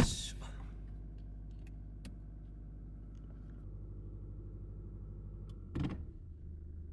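Mazda3 engine idling steadily with a low hum, its idle speed raised while the engine runs its purification cycle, which is normal and not a fault. A sharp knock comes right at the start and a short thud near the end, after which the hum deepens.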